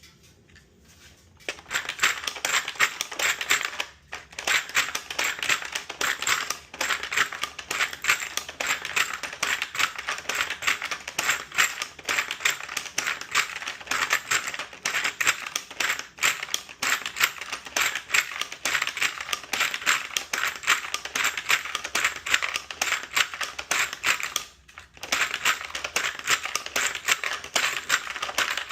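Rifle cartridges being pushed one after another through a 3D-printed AR-15 magazine loader into the magazine: a fast, steady run of hard clicks and metallic clinks of brass on plastic, with a few short pauses and a longer one near the end.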